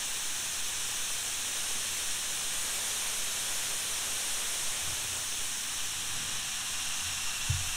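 Jet Central Rabbit kerosene model turbine engine running at high speed, around 130,000 RPM: a steady jet hiss with a faint high whine held throughout.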